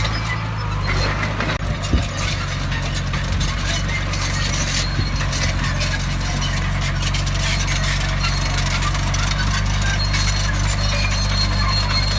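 Shantui DH17C3 crawler bulldozer's diesel engine running steadily, with constant clanking and rattling over it and one sharp knock about two seconds in.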